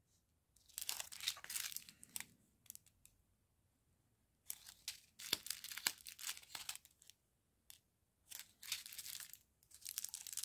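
Thin clear plastic sachets of round diamond painting drills crinkling as they are handled and turned over, in three bursts with short quiet gaps between.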